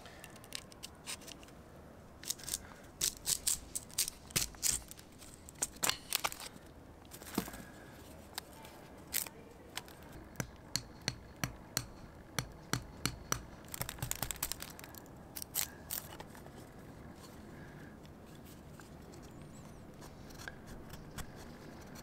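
Knife blade shaving and cutting a dry stick, a series of short, crisp scraping strokes in quick runs, sparse and fainter over the last few seconds.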